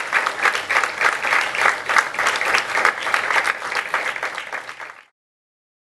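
Audience applauding in a hall, a dense clatter of many hands. It thins out over the last second and cuts off abruptly about five seconds in.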